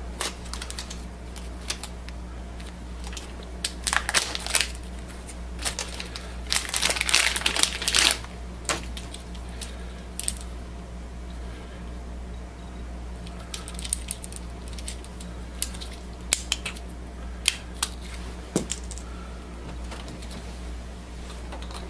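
Foil pouch of an inkjet ink cartridge crinkling and tearing as it is opened, then plastic clicks as the cartridge's protective cap is pulled off and the cartridge is handled. Under it runs a steady low hum.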